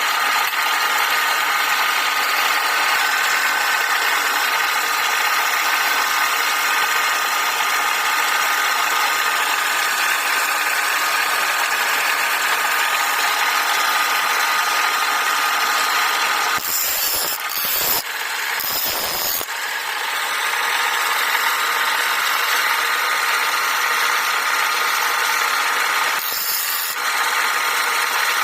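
Wood lathe running steadily, with a turning tool rubbing against the spinning wood: a continuous whine and scraping. The sound is interrupted twice, for a couple of seconds about two-thirds of the way through and briefly near the end.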